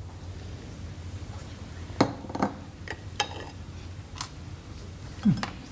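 China teacup clinking against its saucer: several separate light clinks, starting about two seconds in, over a low steady hum. A short low sound near the end.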